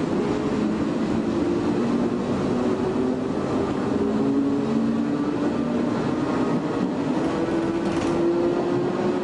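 Shin-Keisei 500-series electric railcar with nose-suspended traction motors running along the line: a steady rumble of wheels on rail under the humming whine of the motors and gears. The whine rises slowly in pitch as the train gathers speed.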